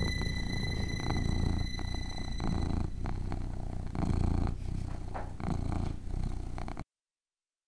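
A cat purring close to the microphone: a low rumble that swells and eases every second or so, cutting off suddenly near the end.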